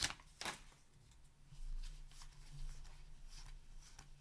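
Trading cards handled and slid against one another as a freshly opened booster pack is sorted, giving soft faint rustles and light clicks, a little sharper in the first half second.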